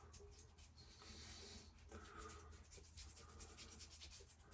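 Faint scratchy rubbing of a shave stick being worked over a wet, stubbled face.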